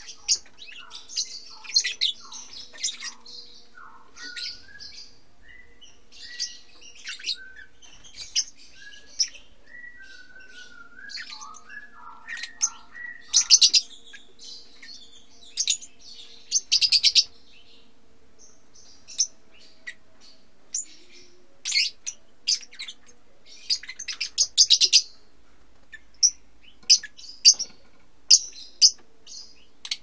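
A flock of lovebirds chirping: many short, shrill calls in rapid bursts, with lower, shorter chirps mixed in during the first half.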